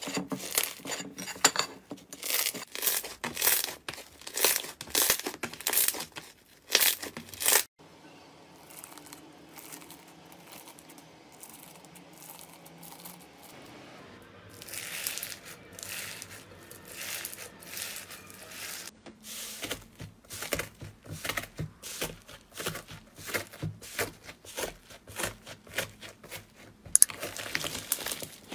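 Slime being squeezed, kneaded and pulled apart by hand: rapid runs of sticky clicks and pops, with a quieter spell of several seconds about a third of the way in before the clicking picks up again.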